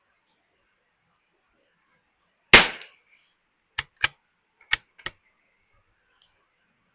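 A single .22 LR shot from a Ruger Precision Rimfire bolt-action rifle, followed about a second later by four quick, quieter metallic clicks of the bolt being worked to chamber the next round.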